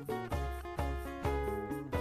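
Background music: a melodic instrumental track with a bass note about every half second.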